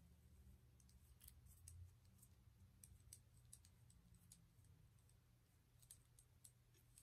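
Faint, irregular small clicks of metal jewellery pliers being handled and closed at the top of a cotton-cord tassel, against near silence.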